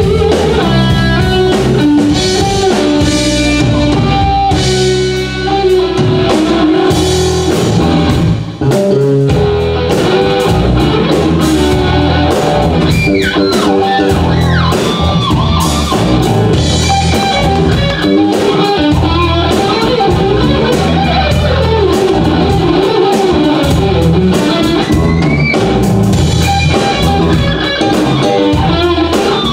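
Live jazz-rock fusion played by an electric guitar, bass guitar and drum kit together.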